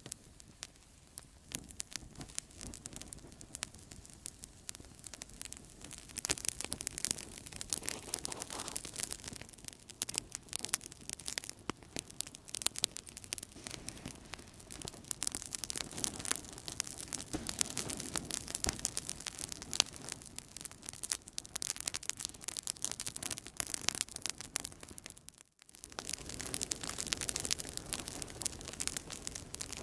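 Outdoor campfire crackling, with many irregular pops and snaps over a steady hiss of burning wood. The sound drops out for a moment about three-quarters of the way through.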